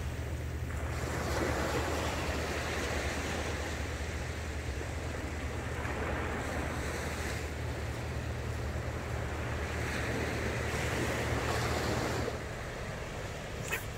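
Small waves breaking and washing up on a sandy beach, swelling and fading every few seconds over a steady low hum, with a single sharp click near the end.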